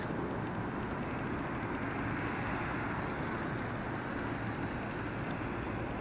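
A steady low rumbling noise with no distinct events.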